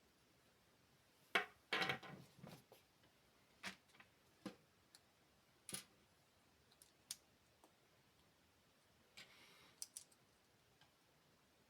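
LEGO bricks being handled and pressed together: scattered sharp plastic clicks, irregularly spaced, with a short rattling rustle about two seconds in and another near the end.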